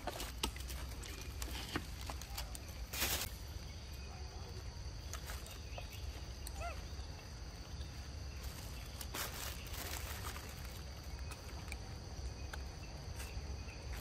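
Outdoor ambience: a steady high insect drone over a low rumble, with scattered rustles and clicks, the loudest rustle about three seconds in. A faint short chirp comes about halfway through.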